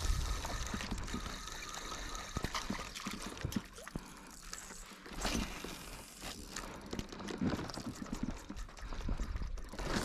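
Water splashing and trickling, with scattered mechanical clicks and knocks.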